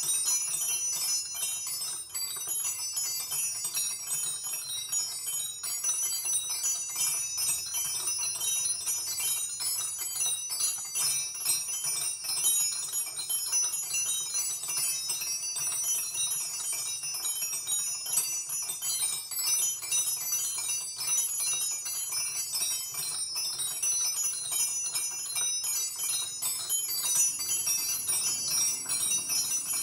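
A set of eight miniature brass bells, tuned in C7 and hung on a tiny Ambrosian-style steel frame with wheels, ringing in a full peal with every bell swinging: a continuous high-pitched jangle of rapid, overlapping strikes.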